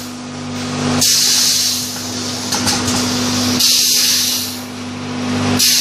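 Curled square baking cup forming machine running through its cycle: three loud bursts of compressed-air hiss, about two to two and a half seconds apart, over a steady machine hum.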